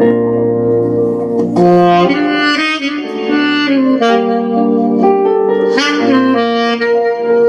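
Saxophone playing a slow ballad melody in long held notes, over a live band of keyboard, bass guitar, electric guitar and drums.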